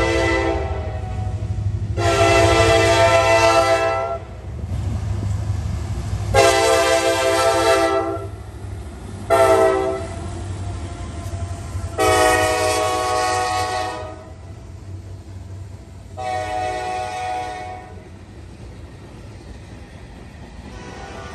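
A Nathan K5LA five-chime locomotive air horn, lightly quilled, sounding a string of blasts: mostly long, with one short blast about nine seconds in, the last ending about eighteen seconds in. Under and after the horn, the low rumble of the passing diesel locomotives and the freight cars rolling by.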